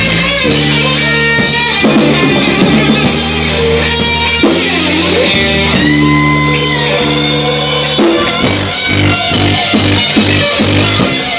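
Live rock band playing an instrumental passage on electric guitars and drum kit, with a lead guitar bending and holding notes. About eight seconds in, the band switches to a choppy, stop-start rhythm.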